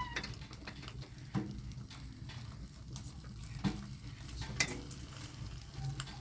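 Food frying in a pan, with a few sharp clicks of a utensil against the pan.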